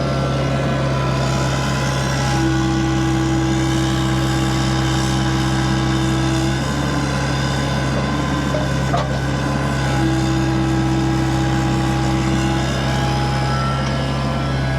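Diesel engine of heavy equipment running steadily under load. A higher steady whine comes in about two seconds in, drops out near the middle, and returns for a few seconds later on.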